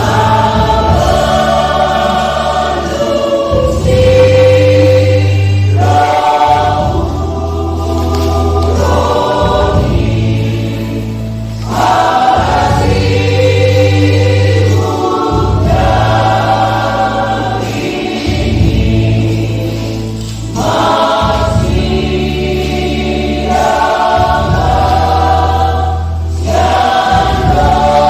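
Church choir singing a Batak Toba hymn in several-part harmony, in phrases of a few seconds each, over sustained low bass notes that shift with each phrase.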